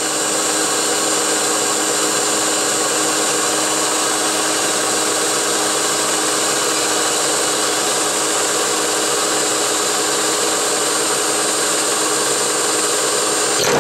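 CNC-converted 9x20 benchtop metal lathe running a boring pass: a steady whine of the spindle and gearing with the boring bar cutting inside the part's bore. A short knock near the end.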